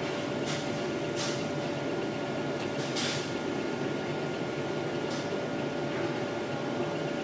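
Steady room hum of running lab equipment and ventilation, with two faint steady tones through it and a few faint short ticks.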